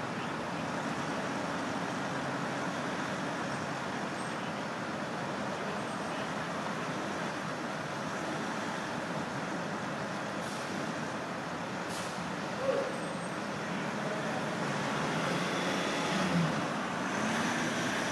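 Military convoy of jeeps and pickup trucks rolling slowly along a city street: a steady hum of engines and tyres. In the second half, two brief louder sounds stand out over it.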